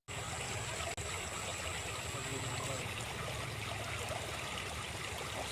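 CC 201 diesel locomotive engine running steadily with a low hum, and a thin high whine that stops about three seconds in.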